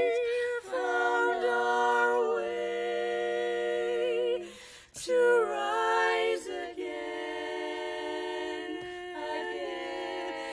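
Women's barbershop quartet singing a cappella in four-part close harmony: long held chords that shift from one to the next, with a brief break for breath about halfway through.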